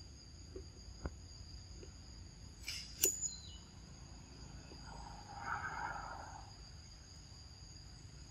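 Insects buzzing steadily in two high tones, with a few faint ticks, one sharp click about three seconds in, and a brief muffled sound around five to six seconds.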